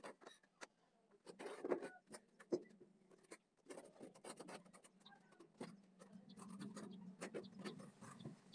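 Faint scratching, scraping and light tapping of hand tools and ceramic wall tiles being worked, in short irregular strokes. A low steady hum comes in after about six seconds.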